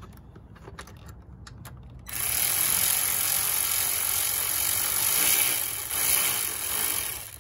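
A 10 mm ratchet running down the nut on a car battery hold-down, set to forward to tighten it. A few light clicks come first, then about two seconds in a continuous, dense ratcheting noise starts. It runs steadily for about five seconds and stops just before the end.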